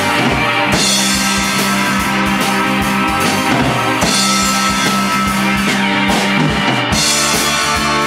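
Live rock band playing with drum kit, electric bass and electric guitar: long held notes over steady drum hits, the chord changing about halfway through and again near the end.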